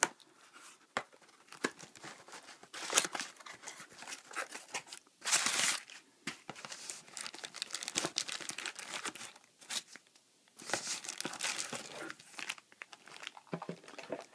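Cardboard shipping box being torn open by hand, then a clear plastic bag crinkling as the bagged item is pulled out, in irregular bursts with short quiet gaps.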